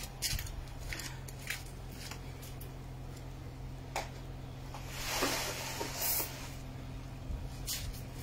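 Scattered faint clicks and rustles of small objects being handled, with a brief hiss about five to six seconds in, over a steady low hum.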